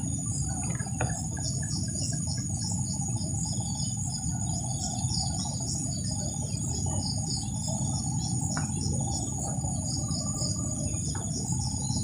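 Steady high-pitched insect drone with rapid repeated chirps, over a continuous low rumble.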